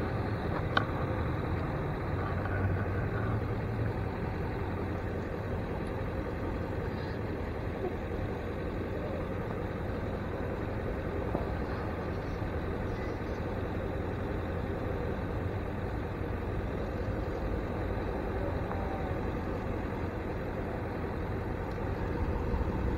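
Steady low rumble of idling vehicle engines, with a faint click about a second in.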